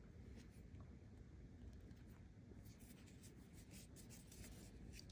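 Near silence, with faint scratching and light ticks from a crochet hook working yarn; the ticks come more often in the second half.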